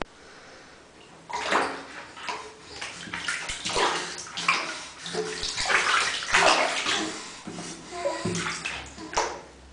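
Bath water sloshing and splashing in a baby bathtub as an infant is washed, in irregular surges starting about a second in.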